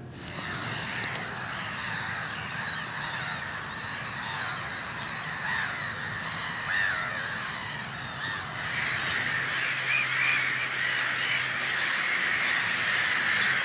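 A large flock of birds calling all at once, a dense continuous chorus of overlapping calls.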